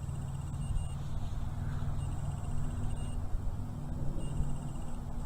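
Steady low mechanical rumble with a constant low hum.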